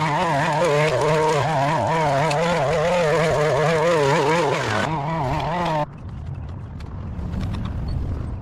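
A small petrol engine, such as a garden power tool, running with a wavering pitch, then cutting off abruptly about six seconds in, leaving quieter background noise with faint clicks.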